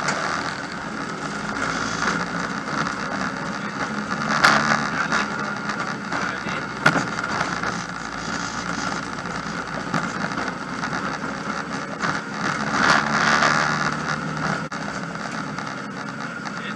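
Rally car driving, heard inside its stripped-out, roll-caged cabin: a steady mix of engine and road noise that swells twice, with two sharp knocks about four and a half and seven seconds in.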